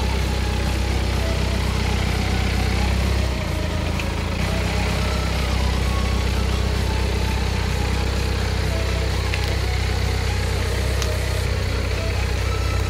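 BMW car engine idling steadily while the car creeps slowly; the low hum shifts about three seconds in.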